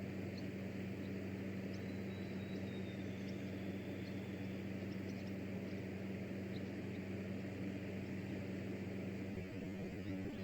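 A steady low mechanical hum under a constant hiss, with a few faint high chirps; no shot is heard.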